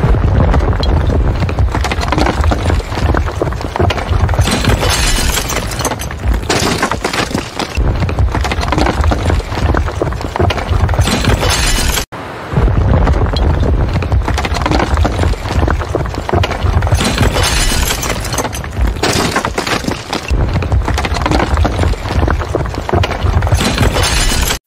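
Building-collapse sound effect: a long, low rumbling crash laced with shattering and breaking debris. It is heard twice in a row, with a brief cut about halfway through.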